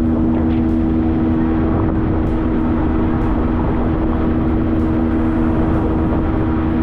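Boat engine running at a steady speed under way, a constant drone holding the same pitch throughout.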